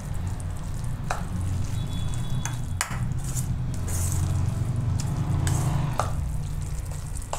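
Spoon stirring thick, wet handvo batter of wheat flour and grated potato in a stainless steel bowl: wet squelching, with a few sharp clinks of the spoon against the bowl, over a steady low hum.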